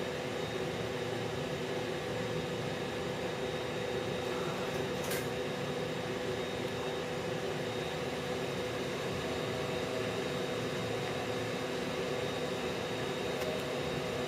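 Steady mechanical hum of running machinery, with a few constant droning tones and no rhythm. There is one faint click about five seconds in.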